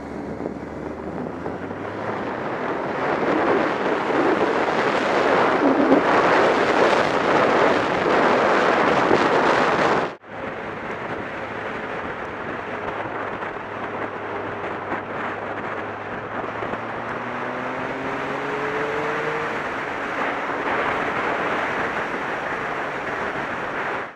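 Wind rushing over a camera microphone on a moving motorcycle. The rush is loudest over the first ten seconds, then cuts out abruptly and comes back quieter, with the motorcycle's engine heard beneath it rising in pitch as it accelerates in the later part.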